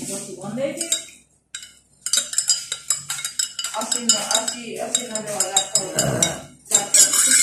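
Metal spoon stirring tea in a glass mug, clinking rapidly and repeatedly against the glass. After a brief pause the clinks come in a dense run from about two seconds in.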